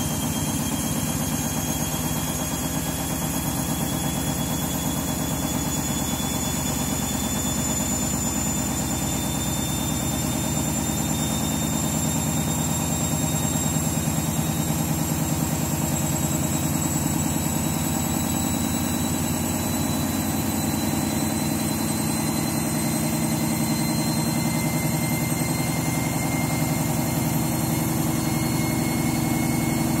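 Candy front-loading washing machine in its final spin, the drum turning at high speed with a steady motor hum. Over it runs a thin whine that slowly rises in pitch as the spin speed creeps up, and a second, lower whine joins about three quarters of the way through.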